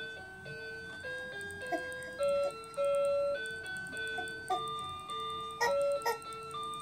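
Electronic baby toy playing a simple chiming tune, one plain note at a time, with two sharp clicks near the end.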